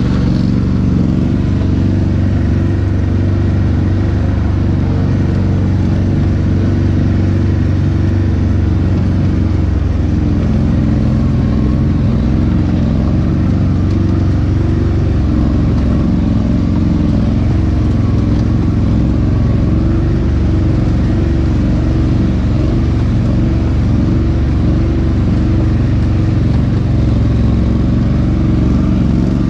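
All-terrain vehicle engine running loud and steady, without revving.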